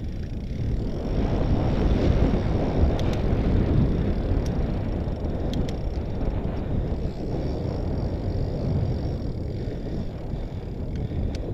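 Mondraker Panzer fat bike riding fast over a dirt and gravel trail: a continuous low rumble of wind buffeting the camera microphone and the fat tyres rolling on the loose surface, with a few sharp ticks.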